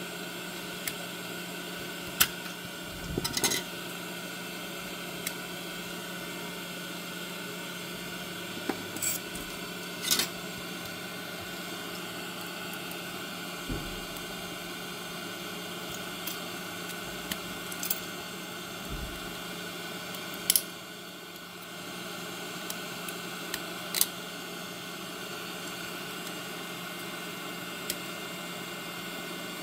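Scattered small plastic clicks and taps as the white plastic housing of a Sonoff S20 smart plug and its wiring are handled and fitted together, over a steady hiss.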